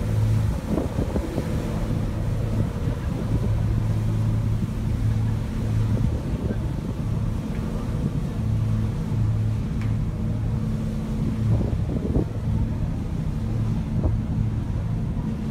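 Steady low drone of a large ferry's engines while under way at sea, with wind buffeting the microphone.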